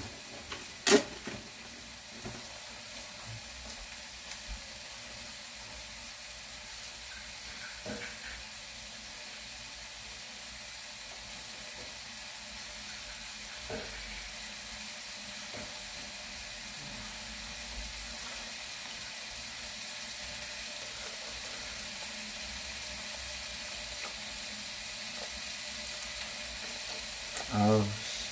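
Steady sizzling hiss, which the speaker calls the sound of pork grilling. There is one sharp click about a second in and a few faint knocks.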